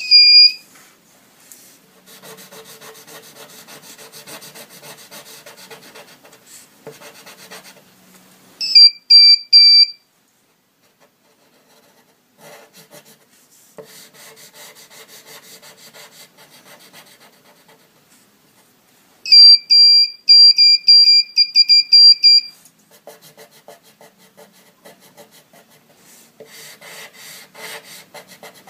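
Small electronic buzzer on a home-made 'sound pencil' (9 V battery, Darlington transistor pair, LED) giving loud, high, steady-pitched beeps in three stretches: briefly at the start, in stuttering pulses about nine seconds in, and for about three seconds near twenty seconds in. The beeping is the sign that the circuit is closed through the drawn graphite line and the fingertip. Between the beeps the pencil lead scratches across paper as lines are drawn.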